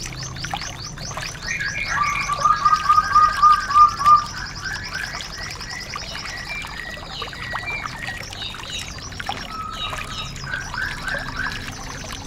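Several songbirds singing over each other: fast high trills run throughout, with a loud series of repeated lower whistled notes from about two seconds in, lasting about two seconds, and scattered chirps after.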